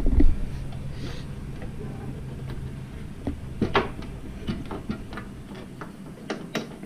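Scattered clicks and clinks of hand tools and metal parts being handled in a Jeep engine bay, with a thump just after the start. A low steady hum runs underneath and stops about three seconds in.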